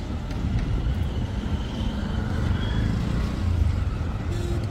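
Outdoor street ambience: a steady low rumble of road traffic.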